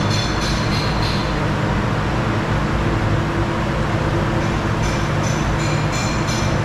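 Steady loud roar of commercial kitchen equipment, the large floor gas burners under the pots and the extraction hood, running with a constant low hum.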